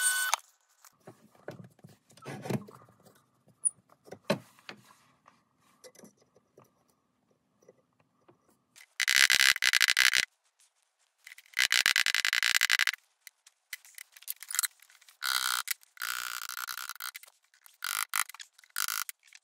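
A hand file scraping in a series of long, harsh strokes, each about a second, against a screwdriver's steel shaft. A brief scrape of a lathe chisel on turning wood comes right at the start, and faint knocks and clatter follow in the first few seconds.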